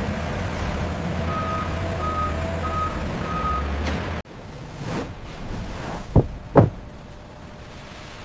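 A vehicle's reversing alarm beeping four times, evenly spaced, over a steady engine rumble. The sound cuts off about halfway through, and two short knocks follow close together.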